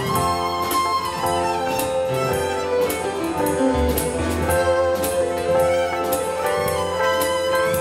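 Live contra dance band playing a dance tune: fiddle leading over keyboard and drum kit, with a steady beat.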